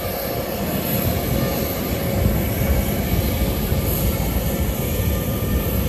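Steady aircraft engine noise: a continuous rumble with faint steady tones in it.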